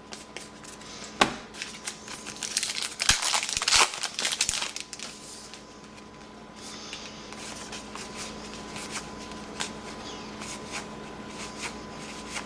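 Trading card pack wrapper crinkling for a few seconds, starting about two seconds in, then cards being handled with scattered light clicks.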